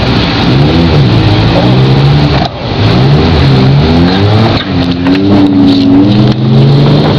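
Geo Prizm's four-cylinder engine revving hard as the car is driven through deep mud, its pitch rising and falling again and again, with a brief drop about two and a half seconds in. Heard from inside the car's cabin.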